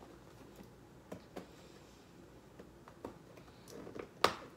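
A few light clicks and taps from objects being handled at a table, with one sharp, louder click near the end.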